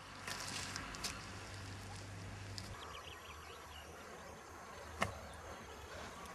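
Outdoor ambience: steady background noise with a low hum, and a single sharp click about five seconds in.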